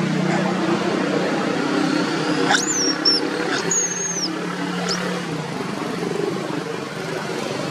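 A motor engine running steadily, with a low hum that eases off a little after about five seconds. A few short, high-pitched chirps or squeaks break in between about two and a half and four and a half seconds.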